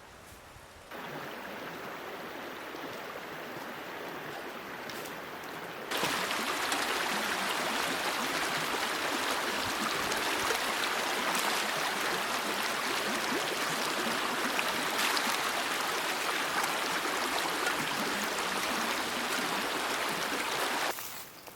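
Running water of a mountain stream, a steady rushing that comes in about a second in, grows louder at about six seconds and stops abruptly near the end.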